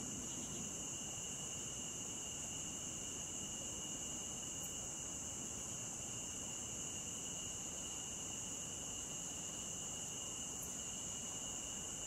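Steady chorus of insects singing in a rural field: a continuous high-pitched drone, with a second, fainter steady tone lower down, over a faint low background noise.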